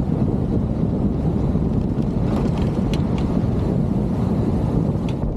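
Steady rumble of a vehicle on the move, engine and road noise mixed with wind buffeting the microphone.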